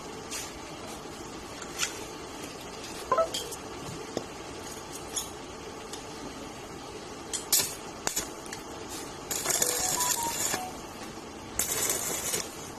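Metal pieces and tools being handled in a welding workshop: scattered clinks and knocks, one with a brief metallic ring about three seconds in. Near the end come two hissing, crackling bursts of about a second each.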